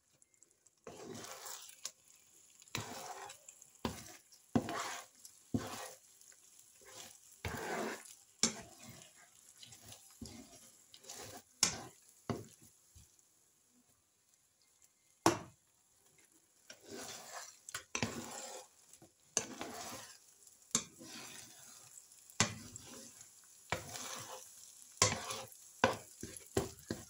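A spatula scrapes and knocks against a frying pan as scrambling egg and onions are stirred and broken into pieces, over a faint sizzle of frying. The strokes come in uneven bursts, with a lull around the middle and one sharp knock just after it.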